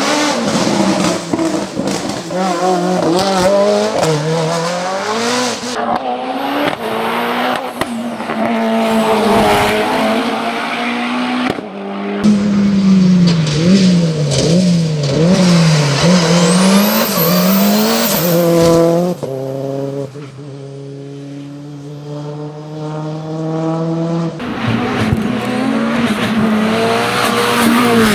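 Mitsubishi Lancer hillclimb prototype's engine at full attack, its revs repeatedly climbing and dropping through gear changes and corners. About halfway there is a run of quick up-and-down revs, followed by a steadier, quieter stretch, before it turns loud again near the end.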